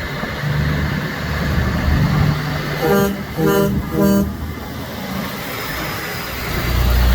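Three short vehicle horn blasts about half a second apart, over the steady low rumble of passing truck and car engines.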